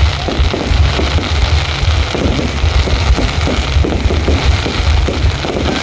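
Fireworks display going off in a dense, continuous barrage: a steady low rumble under a thick crackle, with no single bang standing out.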